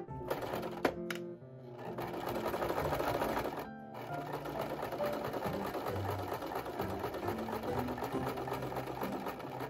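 Electric home sewing machine stitching satin fabric. A couple of sharp clicks come about a second in, then the machine runs, stops briefly about four seconds in, and runs on.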